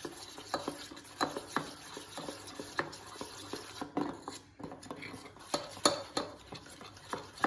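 Steel spoon stirring a thick flour-and-egg batter in a stainless steel bowl, scraping and clinking against the bowl in irregular taps.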